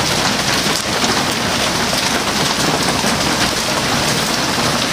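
Small hail and rain falling and hitting surfaces: a dense, steady rush of countless small hits.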